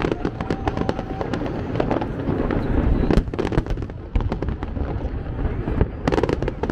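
Fireworks going off in a show: many sharp crackles and bangs in quick volleys over a constant low rumble, thickest near the start, about halfway through and near the end.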